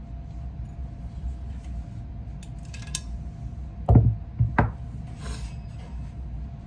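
Clicks and metal-on-metal handling of a Thompson Center Compass bolt-action rifle's bolt being worked and drawn out of the action, with two heavier thumps about four seconds in.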